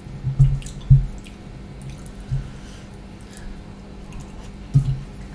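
Close-miked wet eating sounds: rice mixed with dal and fish curry squished by hand, then taken into the mouth and chewed, with a few soft low knocks.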